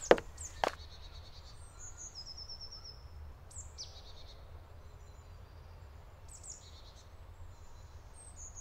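Forest ambience: birds chirping and calling at intervals over a low steady rumble, with two sharp knocks in the first second.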